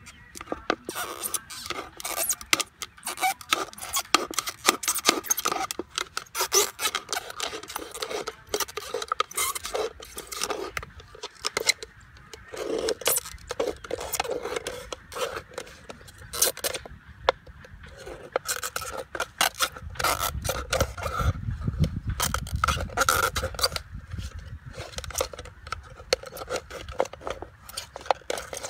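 A knife sawing and scraping through a plastic bottle in quick, irregular strokes.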